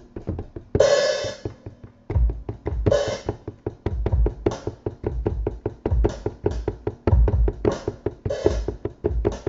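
Acoustic drum kit samples played from a Native Instruments Maschine MK1's pads by finger tapping: a fast, irregular run of kick drum and other drum hits, with several cymbal crashes ringing out. This is a test of the pads' sensitivity after fitting cork pads under them.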